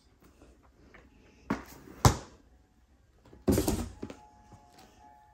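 Boxed diamond painting kits being handled and set down onto a stack: a brief rustle, a sharp tap about two seconds in, and a louder rustle and knock of the boxes at about three and a half seconds.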